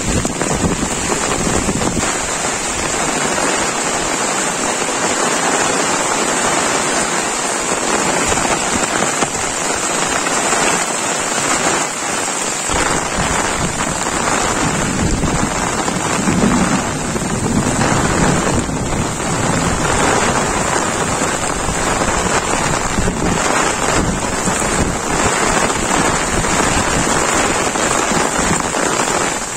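Heavy monsoon rain falling steadily, a dense, even hiss of downpour on paddies and vegetation.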